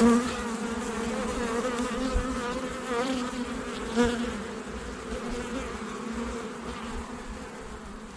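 Honeybees buzzing around an open hive, a steady wavering hum of many wings. It swells when single bees fly close past, at the very start and again about four seconds in.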